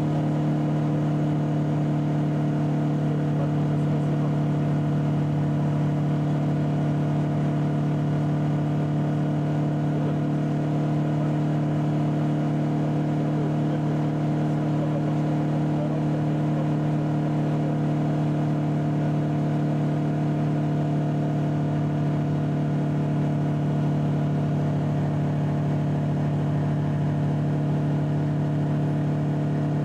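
Ultralight aircraft's piston engine and propeller running steadily in cruise flight, heard from inside the cockpit: an even, unchanging hum with a strong low pitch.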